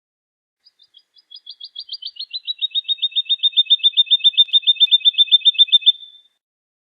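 Woodlark singing one song phrase: a fast run of repeated notes that starts faint and sparse, grows louder and quicker while sliding down a little in pitch, then holds steady for a few seconds and stops about six seconds in.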